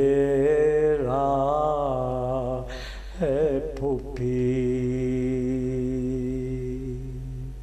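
A man's voice chanting an Urdu salam, a devotional lament, unaccompanied and drawn out in long held notes. About three seconds in the pitch wavers briefly, then settles into a steady held note.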